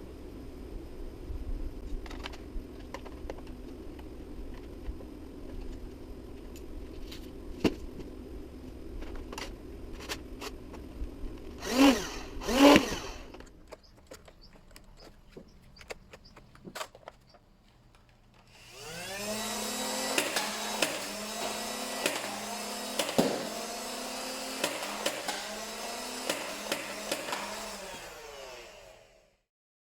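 Nerf Rival Charger's battery-driven flywheel motors briefly revved twice, each a short rising whine, then run for about ten seconds. Through that run the pitch repeatedly dips and recovers, with sharp clicks.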